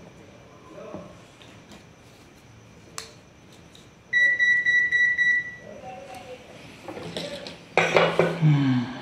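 An electronic beep: one steady high-pitched tone lasting about a second and a half, a little under halfway through. A sharp click comes about three seconds in.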